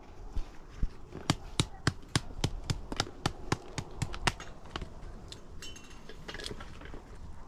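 Hard objects tapping: a quick, even run of sharp taps, about three a second, for some four seconds. Then softer scattered clinks follow, one with a brief ringing.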